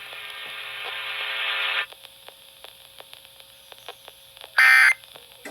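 Emergency-alert broadcast over a radio receiver: a steady buzz swells for about two seconds and cuts off, then faint crackling static. Near the end comes one short, shrill digital data burst, the first of the SAME end-of-message bursts that close an Emergency Alert System warning.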